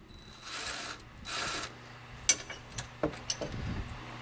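Hand work on a nut and bolt: two brief scraping sounds, then a few sharp metal clicks and clinks, as the second nut is worked off the upper pinch bolt of a Polaris Ranger's front strut housing.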